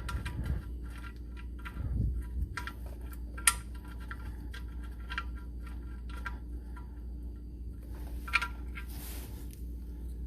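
Irregular small metal clicks and taps as the oil drain plug is put back into the oil pan, with two sharper clinks, one about a third of the way in and one near the end, over a steady low hum.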